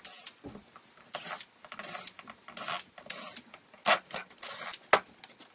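Tool work on a Yamaha PW80 two-stroke crankcase: a string of short scraping, hissing bursts with two sharp clicks about a second apart near the end.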